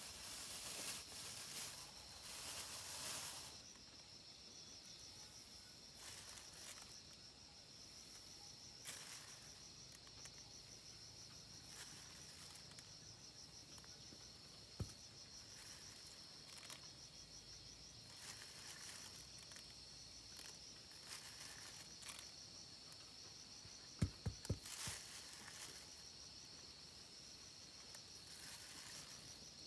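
Insects chirring steadily in a high pulsing drone, with intermittent rustling of a plastic bag as a hand works through the dry grains inside it. There is a sharp tap about halfway through and a quick run of taps later on.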